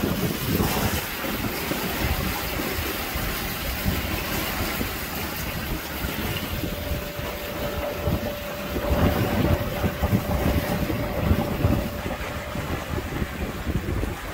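Wind buffeting the microphone and water rushing along the hull of a sailboat under way, with a faint steady hum that comes in about halfway through and fades near the end.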